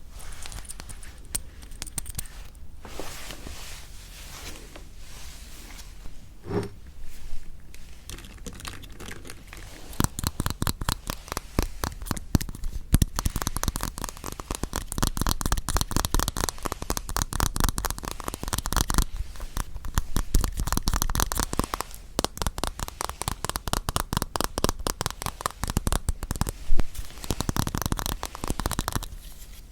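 Close-miked tearing and crinkling of the plastic wrappers of yanggaeng (sweet red bean jelly) bars. Light rustling at first, then from about a third of the way in a dense, steady run of sharp crackles until shortly before the end.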